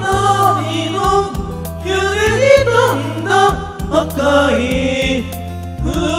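Karaoke singing: voices singing a Japanese pop song into microphones over a karaoke backing track with a steady bass line and drum beat.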